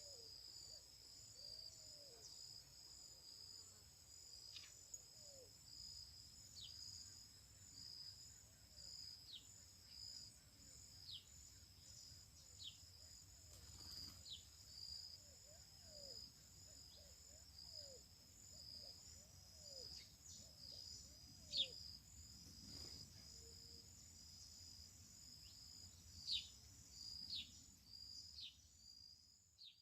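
Faint outdoor chorus of insects: a steady, high, pulsing trill throughout. Short downward-sliding bird chirps repeat every second or two over it, with a few louder ones near the end.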